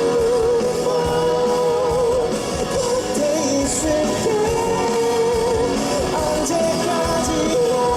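Live rock band playing at full volume, with drums and guitars under long held, wavering sung notes from a male rock vocalist.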